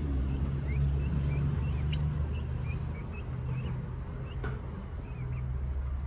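Young poultry peeping: a string of about a dozen short high peeps spread over several seconds, over a low steady mechanical hum.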